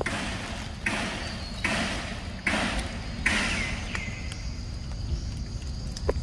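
Five crunching rustles in dry leaf litter in a steady rhythm, about one every 0.8 seconds, like footsteps through leaves. They stop about four seconds in.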